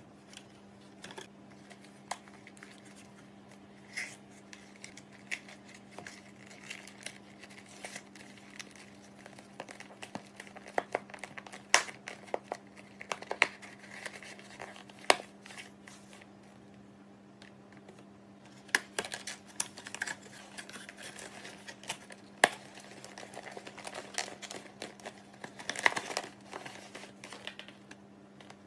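Cardboard cereal boxes being handled and their top flaps folded and tucked shut: irregular rustling, scraping and sharp taps of cardboard, over a faint steady hum.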